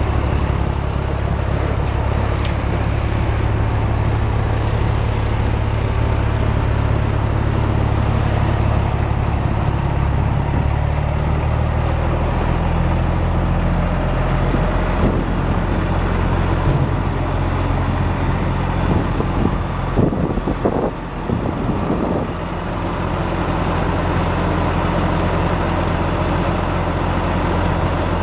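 The Cummins M11 10.8-litre inline-six diesel of a Ford Aeromax L9000 dump truck idling steadily, its note shifting lower about twelve seconds in. A short stretch of irregular knocks breaks in around twenty seconds in.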